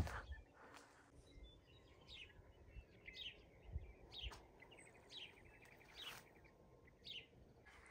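Faint bird chirps in quiet open-air ambience: short downward-sliding calls repeated about once a second, with a brief buzzy trill about two seconds in.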